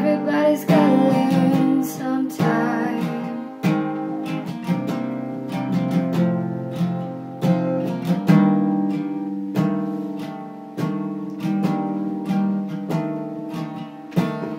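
Acoustic guitar strumming chords in a steady rhythm, with a singing voice over it in the first few seconds.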